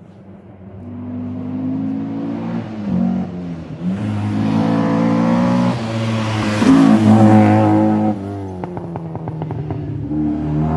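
Rally car engine at full throttle on a special stage, climbing in pitch through the gears with brief drops at each shift and loudest as it passes about five to seven seconds in. A quick run of sharp cracks follows near the end as it goes by.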